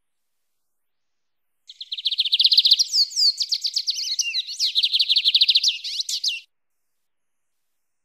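Lined seedeater (bigodinho) singing its wild-type "mateiro" song: one phrase of about five seconds, starting about two seconds in, a fast run of short high notes broken in the middle by a few sliding whistles.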